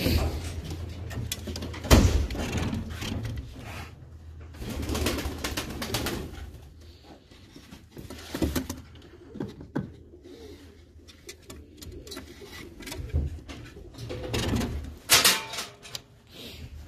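Baku fighting pigeons cooing in a small loft, with a couple of sharp knocks about two seconds in and near the end.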